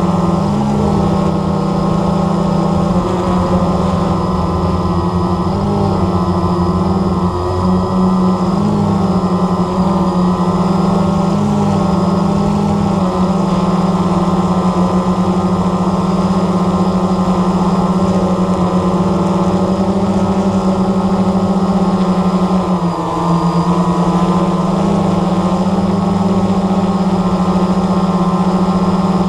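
Blade 350 QX3 quadcopter's four brushless motors and propellers humming steadily in flight, heard from the GoPro camera mounted on the drone itself. The pitch wavers slightly as the motors adjust speed.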